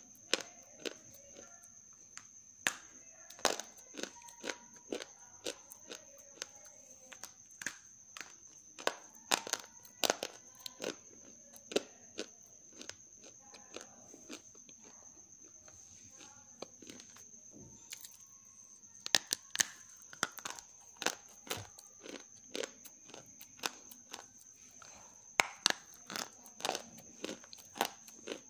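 Pieces of half-roasted grey clay snapped and crumbled between the fingers: sharp, irregular crunches and cracks that come in quick clusters and are thickest in the second half. A faint, steady, high-pitched whine runs underneath.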